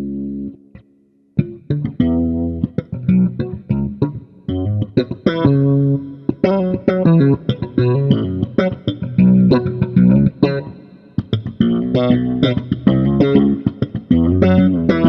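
Leones KJ5 electric bass guitar played solo: a held note dies away, there is a brief pause about a second in, then a quick run of plucked notes with sharp attacks.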